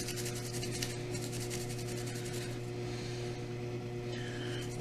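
Fast, scratchy rubbing on the blackened, corroded contacts of a joystick circuit board, being scrubbed with isopropyl alcohol. The rubbing is strongest in the first half and fades after, over a steady electrical hum.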